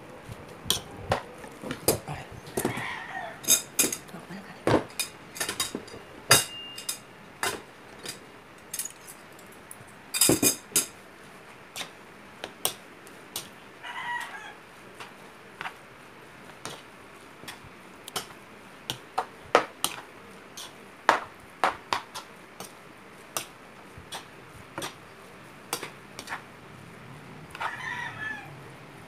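A metal spoon and fork clink and scrape against a ceramic bowl in quick, uneven taps as rice is mixed. A few short animal calls sound in the background: one about three seconds in, one midway, and one near the end.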